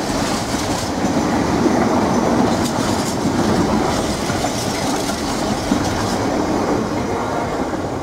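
Container flat wagons of a freight train rolling past, steel wheels rumbling and clacking over the rails in a steady, loud run as the last wagons go by.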